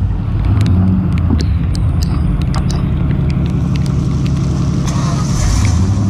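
1990s Ford full-size pickup's engine working hard under throttle as the truck spins its tyres through a mud hole, steady and loud, with scattered sharp ticks throughout.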